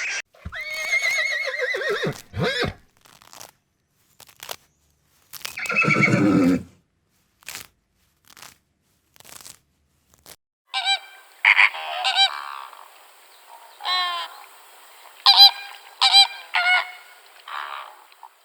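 A string of separate farm animal calls: two longer calls in the first seven seconds, the second one deeper, then from about the middle a run of short, high honking calls from poultry.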